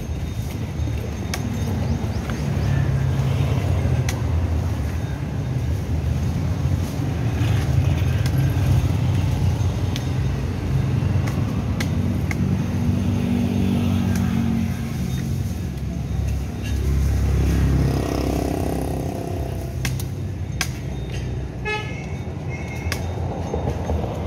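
Street traffic: car and motorcycle engines passing close by in a steady rumble that swells and fades, with a vehicle horn tooting briefly near the end. Scattered sharp snaps and clicks of cut tree branches being handled sound over it.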